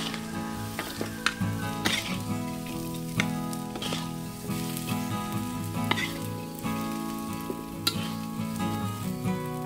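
A metal spatula stirring and scraping raw rice grains in a hot oiled wok, the grains sizzling as they fry, with a sharp scrape about every second.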